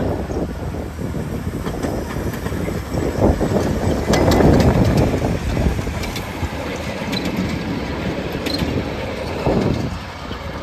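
Tinkerbell-class 7.25-inch gauge miniature steam locomotive and its passenger cars running past close by. The sound swells to its loudest about four seconds in as the engine goes by, with sharp clicks from the wheels on the track.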